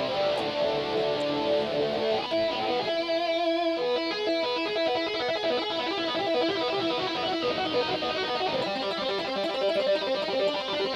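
Electric guitar music with long held notes.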